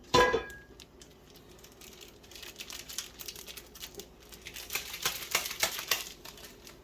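Plastic packet of Betapac curry powder crinkling as it is handled and opened, a dense run of small crackles that grows busier about two seconds in.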